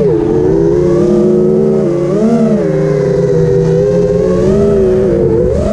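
Diatone Crusader GT2017 FPV racing quadcopter's brushless motors and propellers whining in flight, the pitch rising and falling with throttle, climbing about two seconds in and again near the end. Wind rumbles on the onboard camera's microphone.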